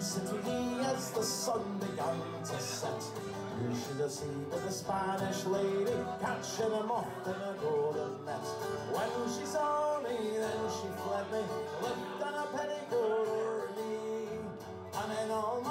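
Background music led by guitar, playing throughout.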